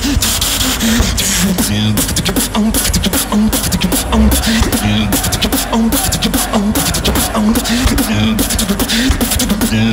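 Competition beatboxer performing a showcase on a microphone: a fast, steady beat of sharp mouth-made percussive clicks over a repeating pitched bass line.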